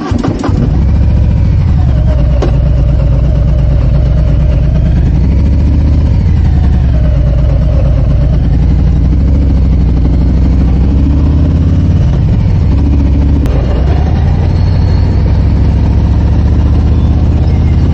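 Harley-Davidson motorcycle's V-twin engine running loudly just after being started, its pitch rising and falling several times as the revs change.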